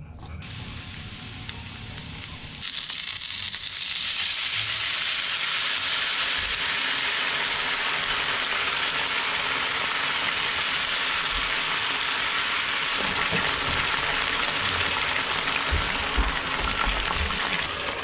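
Frozen gyoza frying in oil in a non-stick frying pan: quiet at first, then a loud steady sizzle from about three seconds in. Water is poured into the hot pan partway through to steam the dumplings, and the pan keeps sizzling.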